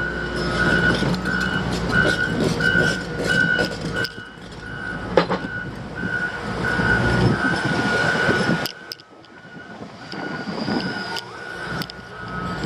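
Heavy construction vehicle engine running with a steady high whine, along with scattered metallic clanks and knocks. The engine rumble drops off about nine seconds in, then builds again.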